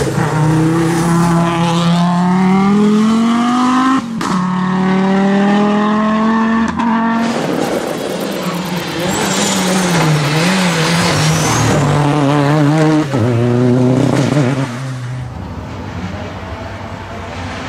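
Race car engines revving hard under acceleration, the pitch climbing and dropping with gear changes, in several short clips cut together, with some tire squeal.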